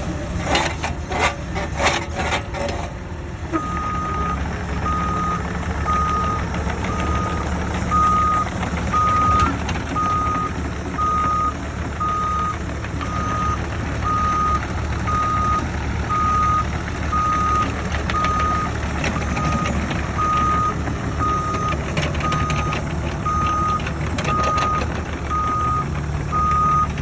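Mini excavator running, its diesel engine humming steadily while its travel alarm beeps about once a second, the sign that the machine is tracking. Rapid clattering for the first few seconds before the beeping starts.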